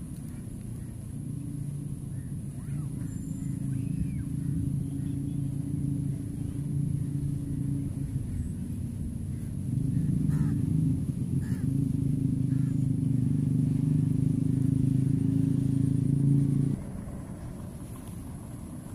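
An engine running steadily. It gets louder about halfway through and stops abruptly near the end.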